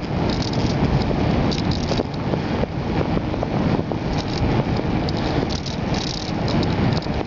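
Riding a bicycle at speed, with steady wind rumble on the microphone and frequent light rattling from the bike and its camera mount over the road surface.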